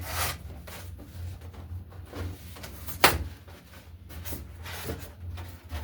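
Handling noises from unboxing a microwave: scattered knocks and rustles, with one sharp knock about three seconds in.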